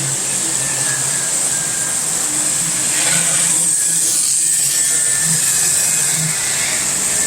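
Model train running on the layout: a steady mechanical hum and hiss from its small electric motor and wheels on track, briefly swelling a few seconds in.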